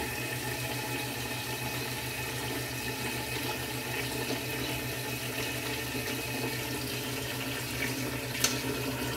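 Kitchen tap running into a large pot in the sink, filling it with water over dry spaghetti. A short knock comes near the end.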